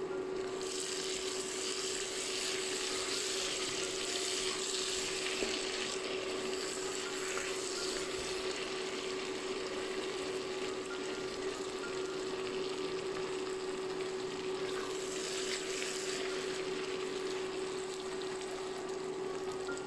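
Food sizzling as it fries in oil in a pan, with occasional stirring. The sizzle swells about a second in and again briefly near the end, over a steady low hum.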